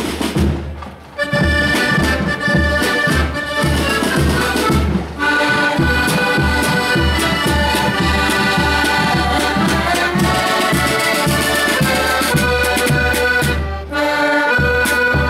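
A marching accordion band plays a tune: massed piano and button accordions in sustained chords over a steady beat of snare and bass drums. For about the first second there are drums alone, then the accordions come in, with short breaks in the music about five seconds in and near the end.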